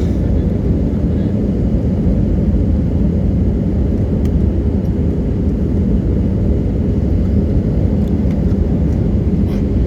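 Steady, loud cabin roar of an Airbus A320 airliner on approach, its jet engines and airflow heard from inside the cabin as an even low rumble.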